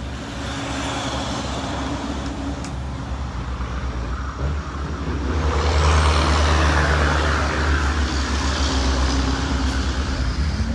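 Hino box truck's diesel engine running close by, with road and traffic noise. The engine and a broad rushing noise swell about five seconds in and stay loud.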